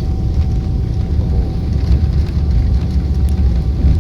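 Airliner cabin noise: a steady, loud low rumble of jet engines and rushing air, heard from inside the passenger cabin, with a faint steady hum above it.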